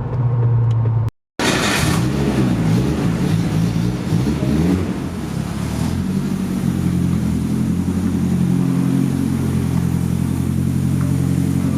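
Volkswagen Polo 86c's turbocharged 1.3-litre eight-valve four-cylinder engine running. After a brief cut about a second in, its engine speed swings up and down for a few seconds, then holds steady.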